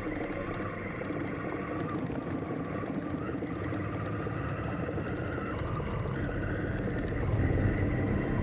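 Honda Africa Twin parallel-twin motorcycle engine running steadily while riding a dirt trail, getting a little louder near the end.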